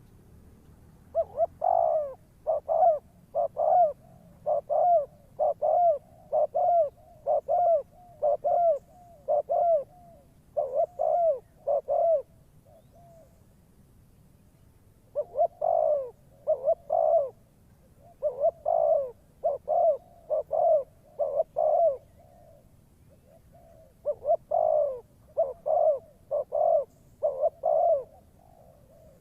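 Spotted dove cooing: quick runs of short, low coo notes in three bouts, with brief pauses between them.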